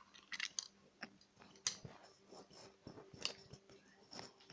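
Scattered clicks, crinkles and rustles of something being worked open with one hand, with a sharper click about a second and a half in and another a little past three seconds, over a faint steady hum.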